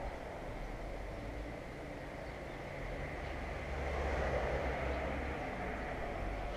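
Outdoor daytime ambience: a steady rumble of distant traffic that swells about four seconds in, then eases.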